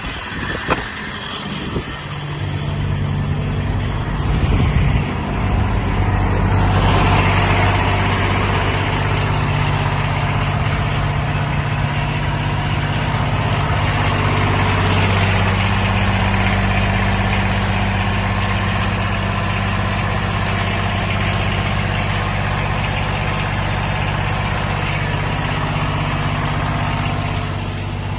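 Engine of a 1995 Ford F450 pressure washer truck idling steadily. A louder hissing, rushing sound joins about seven seconds in and carries on over the idle.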